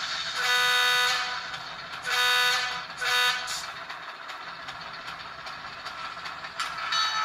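Digitally sampled diesel locomotive horn from an ESU LokSound V5 Nano DCC sound decoder, played through a tiny 8x12 mm sugar cube speaker in an N scale locomotive. It sounds three blasts: one long, then a shorter one, then a brief one. The decoder's diesel engine sound runs quietly underneath.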